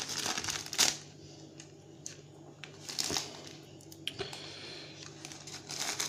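Plastic postal mailing bag rustling and crinkling as it is handled, with a few sharp crackles.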